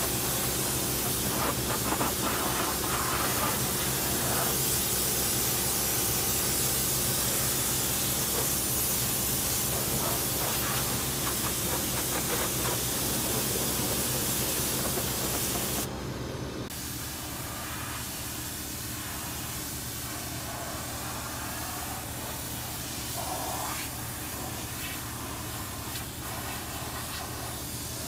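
Kärcher K3 Silent pressure washer spraying a water jet onto a Caterpillar excavator's boom: a steady hiss of spray with a steady hum under it. About halfway through the spray cuts out for a moment, then goes on quieter without the hum.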